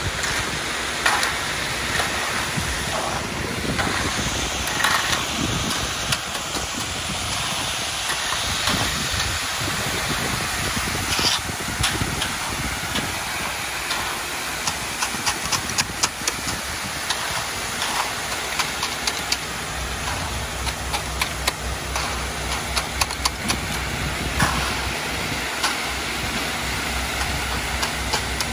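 Wet concrete sliding down a ready-mix truck's chute and pouring onto the form, a steady rushing hiss, with rakes scraping and clicking through the concrete. The mixer truck's engine runs underneath, growing louder about two-thirds of the way in.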